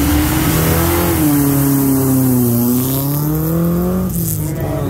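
Race car engine revving hard as it pulls away, its pitch dipping and then climbing again, with the sound changing abruptly near the end.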